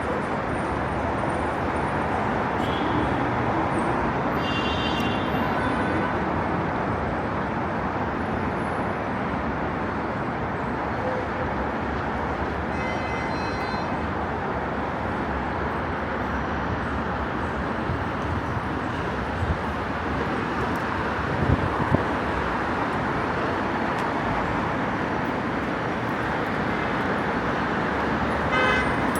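Steady rumble of road traffic, with a few faint high chirps and some brief knocks partway through.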